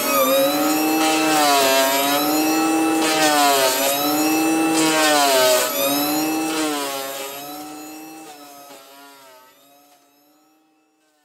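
CAT compact track loader running a forestry mulcher head through brush and small trees: a loud high whine whose pitch dips and recovers every second or two as the head bites into wood and bogs under load. The sound fades away over the last few seconds to near silence.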